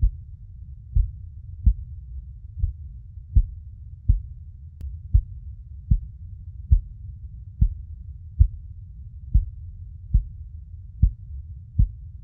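Slow, regular heartbeat sound made for soothing a baby: short low thumps repeating about every 0.8 seconds over a steady low rumble.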